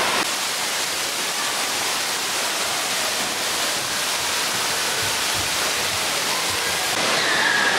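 Water jets and fountains spraying and splashing into a pool, a steady rushing hiss of falling water.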